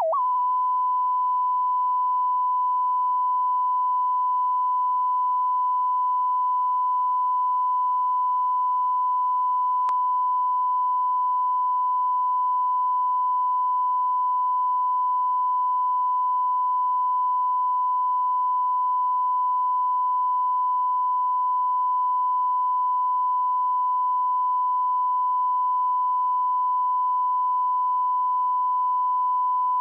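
Steady 1 kHz line-up tone played with colour bars at the head of a broadcast videotape, the reference tone for setting audio levels, with one faint click about ten seconds in.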